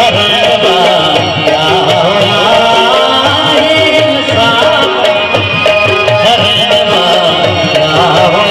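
Live Sindhi folk song: a male voice singing over harmonium, with tabla and dholak drumming a steady beat.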